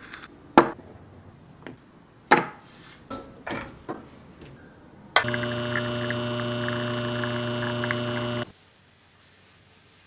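A few sharp clicks and knocks, then an espresso machine's pump hums steadily for about three seconds while a shot pours from a bottomless portafilter, and cuts off suddenly.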